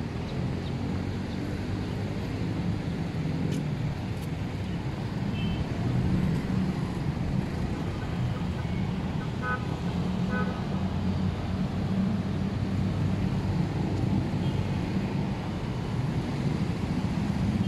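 Steady road traffic from passing motorcycles and tricycles, a low engine rumble that grows a little louder about six seconds in, with a couple of short high chirps near the middle.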